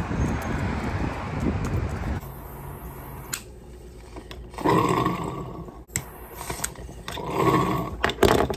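Wind noise on the microphone and street sound for about two seconds. Then a glass water bong bubbling twice as smoke is drawn through it, each draw about a second long, with a few sharp clicks in between.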